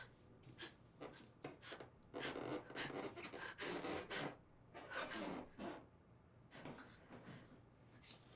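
A young woman breathing heavily and gasping, with a run of loud, quick breaths about two to four seconds in and another near the five-second mark.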